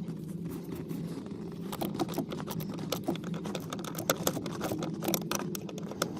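Irregular light clicks and taps of hand work on the clutch pedal switch and its wiring, over a steady low hum.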